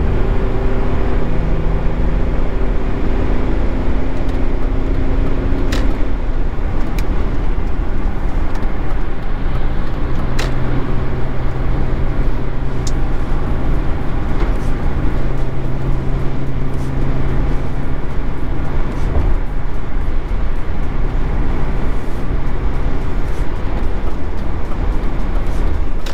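BMW X5 E53 3.0d's straight-six turbodiesel pulling under hard acceleration, heard from inside the cabin over heavy road and wind noise. The engine note climbs slightly for the first few seconds, then holds a steady low drone, with a few sharp clicks along the way.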